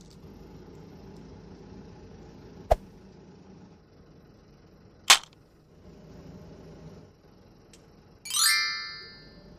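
Low steady background hum broken by two sharp clicks about two and a half seconds apart, then near the end a bright ringing chime of several tones that fades away, like an edited-in sound effect.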